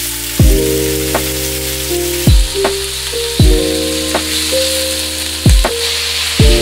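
Sliced pork shoulder sizzling in hot oil in a frying pan as it is stirred with a silicone spatula. Background music runs over it, with sustained chords and a deep kick drum every second or two.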